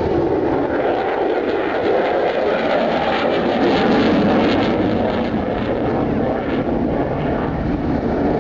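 Jet fighter engine noise as the aircraft flies past: a steady, loud rush that swells slightly about halfway through.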